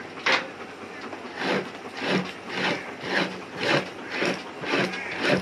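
Two-handled fleshing knife scraping down a deer hide over a fleshing beam in repeated short strokes, about two a second, pushing off fat and membrane.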